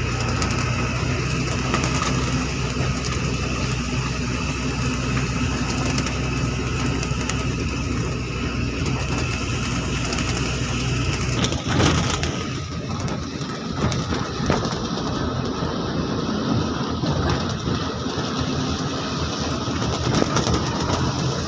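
Engine of a moving road vehicle running steadily, heard from on board. About twelve seconds in the low hum drops away as the vehicle slows, and a lighter running sound continues.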